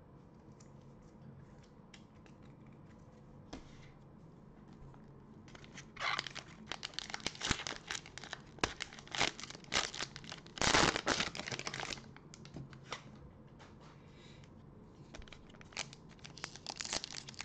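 Foil trading-card pack from a 2020-21 Panini Prizm basketball mega box being torn open and crinkled by hand. It starts faint, then comes a stretch of tearing and crinkling that is loudest just before the halfway point, and more crinkling near the end.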